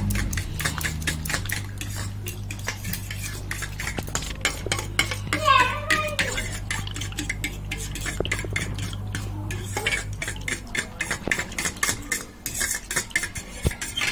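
Metal spoon stirring powdered milk into milk in a steel bowl, clinking rapidly and repeatedly against the sides, over a steady low hum. A brief pitched, wavering sound comes about halfway through.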